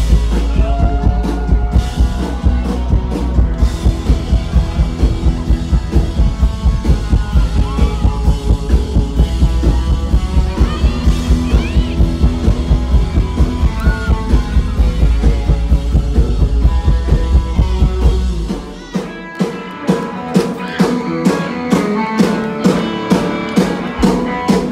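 Live rock band playing an instrumental passage: drum kit keeping a steady beat under electric guitar. The deep bass drops out about three-quarters of the way through while the drums and higher instruments carry on.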